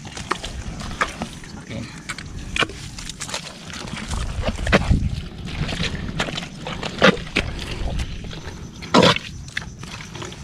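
Muddy water sloshing and splashing irregularly as people wade through a swamp foraging for kambong-kambong snails, with louder splashes about 5, 7 and 9 seconds in.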